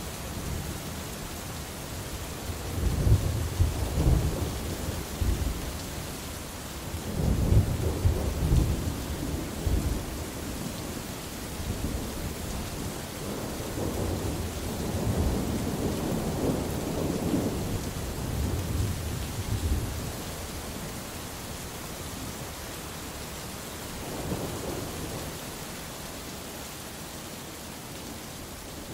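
Thunderstorm: steady rain hissing, with several rolls of low thunder rumbling over it, the loudest about three and eight seconds in, then longer, softer rumbles towards the middle and a small one near the end.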